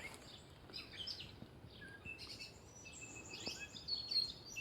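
Several birds singing and chirping, short high chirps and whistles overlapping one another over faint outdoor background noise.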